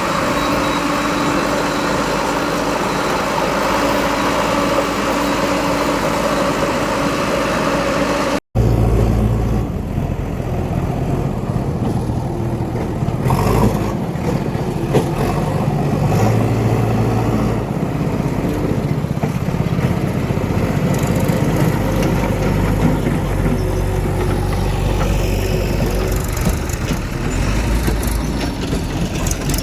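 Diesel engines of heavy farm or earth-moving machinery running steadily. For the first eight seconds the engine has a steady whine over it. After an abrupt cut, a deeper, heavier engine sound carries on.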